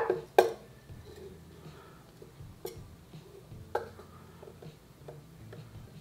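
Steel digital caliper being slid open and set against a radiator and fan: two sharp metallic clicks right at the start, then faint scraping of the slide and a couple of lighter clicks about three and four seconds in.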